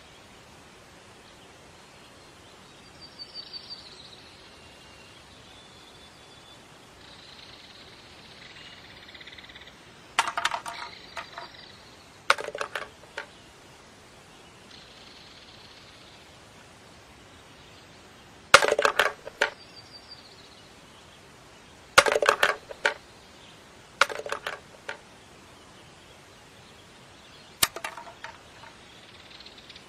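Objects dropping into waste bins, heard as six short rattling clatters several seconds apart over a faint steady hiss.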